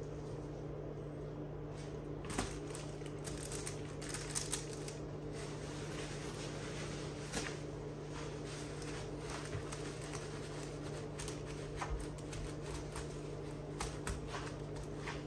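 Light scattered crinkles and rustles of parchment paper and a paper towel under gloved hands handling raw butterflied milkfish on a baking tray, over a steady low hum.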